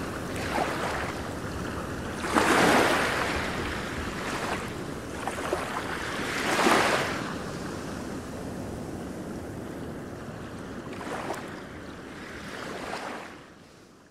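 Wind gusting over the microphone: a rushing noise that swells and dies back several times, loudest twice early in the middle, then fades out near the end.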